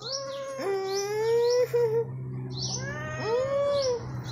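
Domestic cat meowing: about three drawn-out meows that rise and fall in pitch, the longest about a second, sounding like 'maew'.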